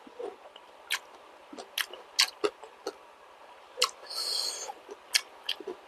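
Close-miked mouth sounds of a person eating balut (fertilized duck egg) with vegetables: scattered wet clicks and smacks of chewing, with a brief hiss about four seconds in.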